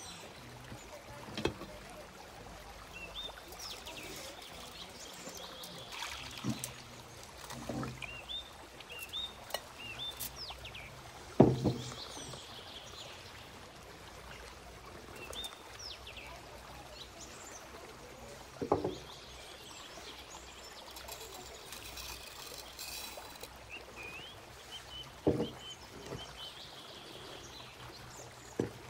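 Outdoor ambience of small birds chirping in quick runs of short calls, over a steady background hiss. A few sharp knocks sound through it, the loudest about a third of the way in.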